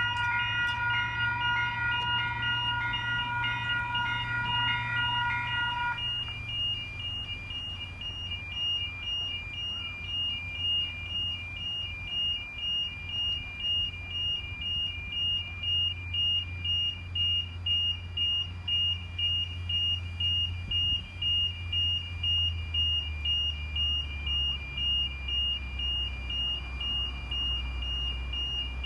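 Railway level crossing warning bells ringing, a repeating two-tone ding at about one and a half strokes a second, the signal that a train is coming and the booms are down. For the first six seconds a steady higher-pitched tone sounds with them, then stops, and a low rumble runs underneath throughout.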